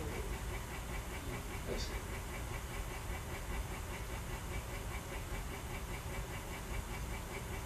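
Steady low hum with an even hiss over it: continuous room noise on the microphone, with one faint short tick about two seconds in.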